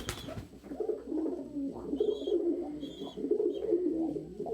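Several domestic pigeons cooing continuously, overlapping, with a few short high squeaks and a sharp click right at the start.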